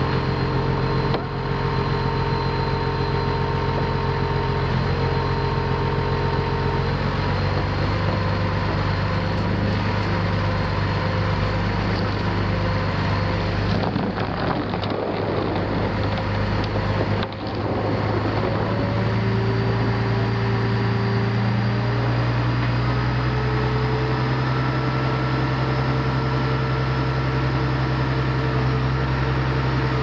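Heavy diesel engine, such as a self-propelled modular transporter's power pack, running steadily as a constant hum; its note shifts to a different pitch a few times.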